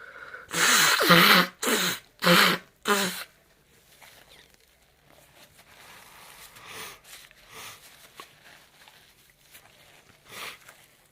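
A person sneezing three times in quick succession in the first three seconds, loud vocal bursts, then quieter breathy sniffs.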